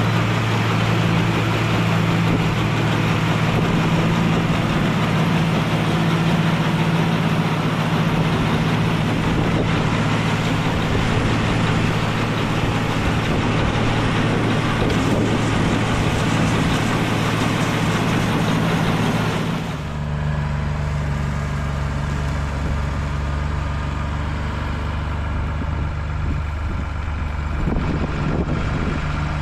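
Tractor engine running steadily under load while driving a mounted two-row corn picker in the field. About twenty seconds in the sound changes abruptly: the higher hiss drops away and the low engine note grows stronger.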